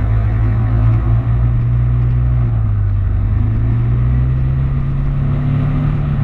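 KTM 390's single-cylinder engine running under the rider. Its pitch holds fairly steady, dips a little, then rises steadily through the second half as the bike accelerates.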